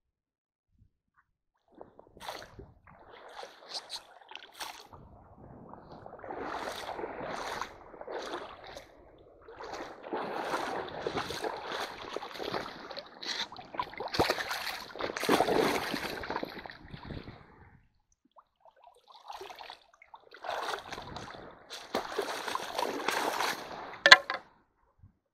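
Shallow stream water splashing and sloshing as a wader stirs the streambed with his feet and hands to drive fish into a bamboo-framed hand net, in several bouts with short pauses. A single sharp click near the end is the loudest sound.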